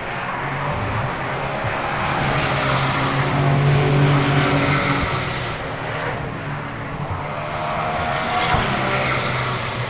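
Racing cars passing at speed, engines rising and falling as they go by in two waves, the louder one about four seconds in and another near the end.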